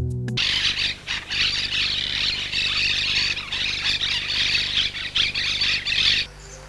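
A flock of monk parakeets (cotorras) squawking and chattering all at once, a dense mass of harsh, overlapping calls. The calls stop abruptly near the end.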